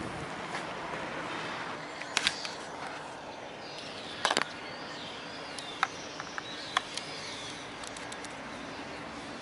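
Birds chirping over a steady outdoor background hiss, with a few sharp clicks and knocks from a cycling helmet being handled and pulled on: a pair about two seconds in, a louder cluster a little after four seconds, then two single clicks.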